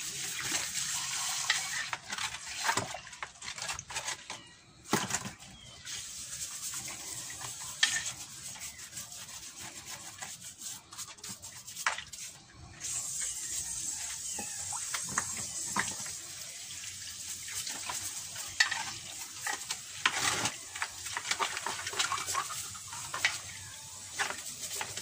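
A plastic toothbrush scrubbing a turtle's shell in a shallow basin of water, with rapid scratchy strokes, small splashes and knocks against the basin, over the hiss of running water.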